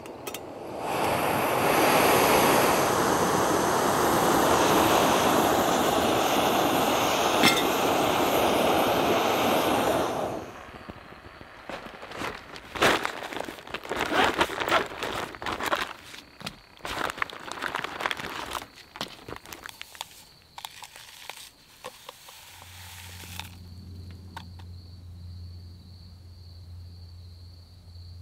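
A steady rushing hiss for about ten seconds that stops suddenly, then irregular crinkling and rustling of a lightweight stuff sack being handled. A faint steady low hum comes in near the end.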